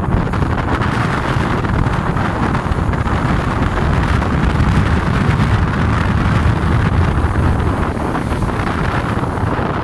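Strong wind buffeting the microphone with a steady low rumble, over rough sea washing and breaking against a rocky shore.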